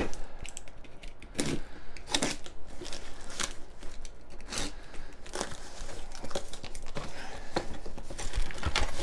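Utility knife slicing packing tape on a small cardboard box, and the cardboard flaps being cut and pulled open: a run of irregular scratches, rips and rustles.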